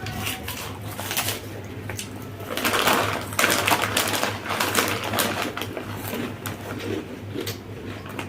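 Eating noises close to the microphone: a dense run of irregular crunching and crackling clicks, louder about two and a half seconds in, over a steady low hum.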